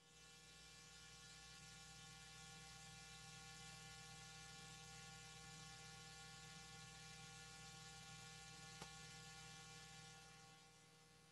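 Near silence: a faint steady mains hum with hiss, easing down near the end.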